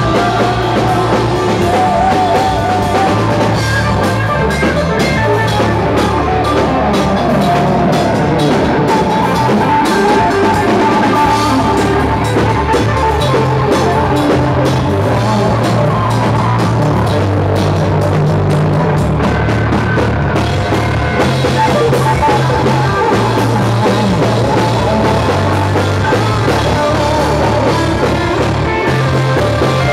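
A rock band playing live and loud: electric guitars, bass guitar and drum kit, with the bass notes shifting in steady blocks under constant drum hits.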